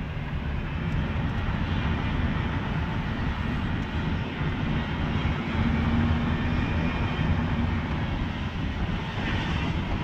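Rear differential of a 2011 Toyota Sienna AWD minivan whining under acceleration while driving, a steady drone over engine and tyre noise, "like an airplane is about ready to take off." A mechanic traced it with a stethoscope to the rear differential, a mechanical fault there.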